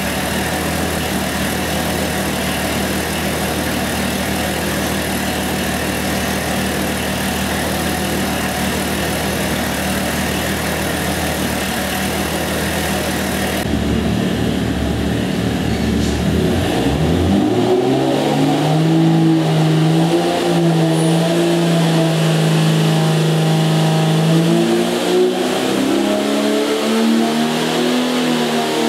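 Golen 4.6-litre stroker build of the Jeep inline-six running on an engine dynamometer. It runs steadily at first; after a cut about 14 seconds in, the revs climb, hold high for several seconds, dip briefly and rise again near the end.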